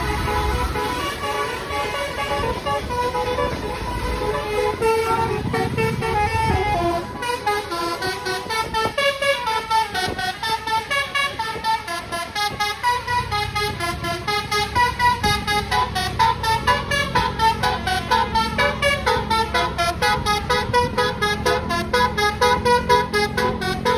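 Indonesian bus 'basuri' telolet musical horn playing a tune of stepped notes, which turn into quick pulsing notes about a third of the way through, over the low rumble of the bus engine.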